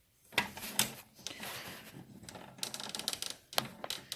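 Plastic clicks and rattles of a printer's mains power plug being wobbled and worked out of its stiff, loose socket, with a quick run of rattling clicks near the middle.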